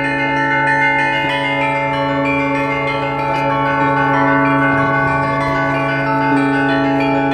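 Russian Orthodox church bells rung together in a continuous peal: the smaller bells are struck rapidly over the long-ringing hum of the larger bells.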